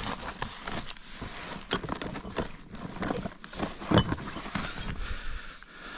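Irregular knocks and clicks of hard objects being handled, with a short ringing clink about four seconds in.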